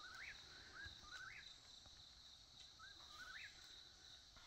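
Eastern whip-poor-will singing its repeated 'whip-poor-will' call, three calls with a short pause before the last, each ending on a rising note.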